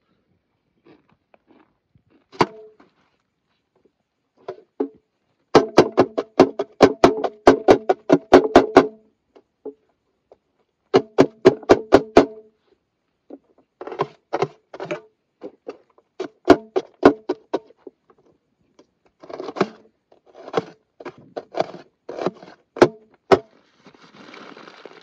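A large curved knife chopping an onion on a steel plate: runs of sharp strikes, about four a second, each one making the plate ring. Near the end a plastic bag crinkles.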